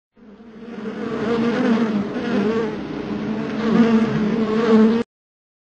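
A bee buzzing: a steady hum that wavers slightly in pitch. It fades in over the first second and cuts off suddenly about five seconds in.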